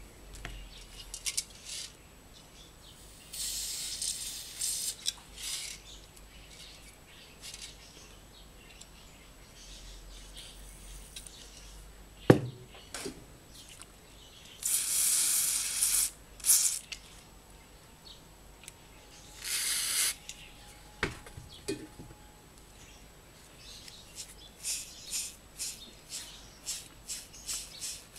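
Aerosol lubricant spray hissing in three bursts, the longest about two seconds, onto the bearings of a small electric trimmer motor. There is a sharp knock midway and a run of quick clicks near the end as the motor is handled.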